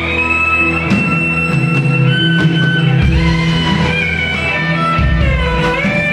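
Live band playing an instrumental passage of the song: a sustained lead melody stepping between long held notes over guitar, bass and drums. The bass line comes in strongly about halfway through.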